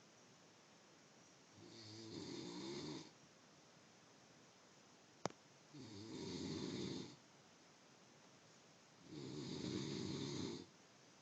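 Snoring: three long snores about one and a half seconds each, coming every three to four seconds, with quiet breathing gaps between them. A single sharp click falls between the first and second snores.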